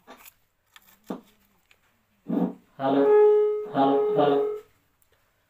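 Music with a melody like singing or a horn, played in short phrases through the repaired PA amplifier. No hiss fills the pauses between phrases.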